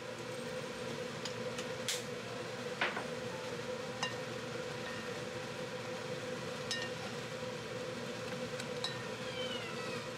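Chicken thigh pieces simmering and bubbling in liquid in a pot, over a steady hum. A wooden spoon stirs them and knocks against the pot a few times.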